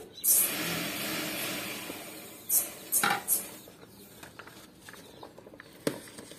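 A steel plate lid comes off a plastic mixing bowl with a clatter and about two seconds of noisy rustle, then is set down with three sharp metal clinks about two and a half to three and a half seconds in. After that come faint, soft sounds of a hand mixing food in the bowl.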